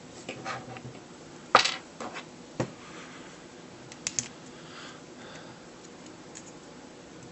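Sharp metallic and polymer clicks and clacks of Glock 30 pistol parts being handled and fitted together during reassembly: a loud clack about a second and a half in, another a second later, and a quick double click about four seconds in.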